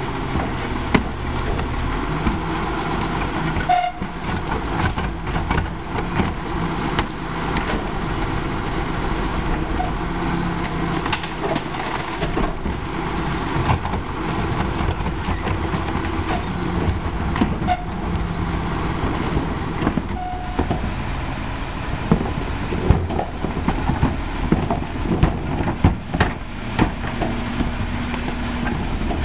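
Crane Carrier rear-loader garbage truck's diesel engine running steadily while the Heil body's cart tippers lift and dump plastic trash carts into the hopper, with repeated knocks and bangs of the carts against the tipper and hopper, coming thick and fast near the end.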